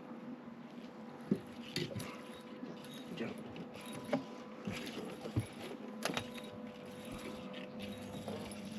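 Scattered light clicks and knocks of fishing gear being handled in a boat, over a faint steady hum.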